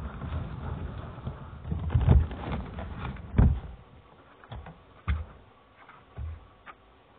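Handling noise from a camera microphone covered by skin and fabric: dull rubbing and thumps for the first three and a half seconds or so, then a few separate knocks.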